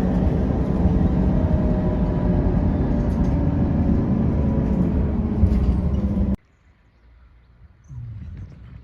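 Steady low engine and road noise of a moving vehicle, cutting off abruptly about six seconds in and leaving a much quieter low rumble.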